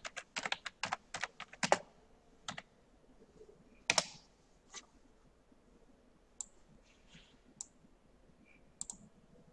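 Typing on a computer keyboard: a quick run of keystrokes over the first two seconds, then a louder single click about four seconds in and a few scattered, fainter clicks after it.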